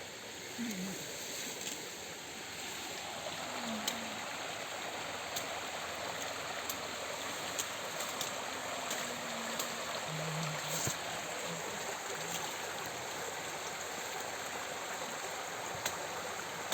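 River water flowing: a steady, even rush of moving water.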